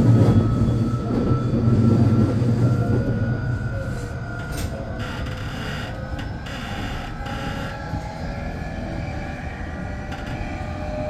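Semboku Rapid Railway 9300-series electric train running, with the rumble of wheels on rail and a thin motor whine that slowly rises in pitch. A few short clicks come about halfway through.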